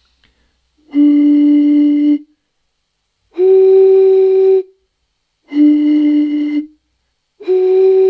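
Breathy, hollow tones from blowing across the mouths of two small glass bottles partly filled with water, played one after the other: four held notes of about a second each, low, higher, low, higher, the two pitches only slightly apart.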